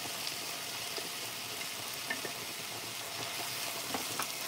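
Chopped vegetables sizzling as they sauté in hot oil in an enamelled cast-iron pot, with a few light taps and scrapes of a silicone spatula stirring them.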